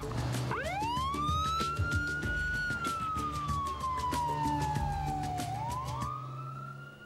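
Emergency vehicle siren wailing: its pitch climbs about half a second in, slides slowly down, then climbs again near the end, with music playing underneath.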